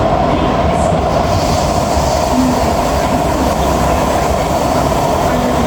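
Cabin noise of an SMRT C151B metro train running at steady speed, heard from inside the passenger car: a constant rumble of wheels on rail with a steady hum running under it.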